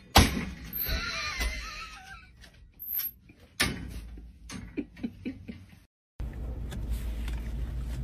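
A dog at a metal baby gate: a sudden loud knock against the gate, then whining that rises and falls in pitch, then a few lighter knocks and rattles. The sound cuts off just before six seconds and gives way to a steady low rumble.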